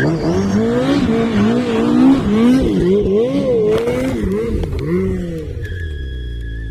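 Off-road vehicle engine revving up and down repeatedly as the throttle is worked hard, then dropping to a lower steady run near the end with a thin high whine.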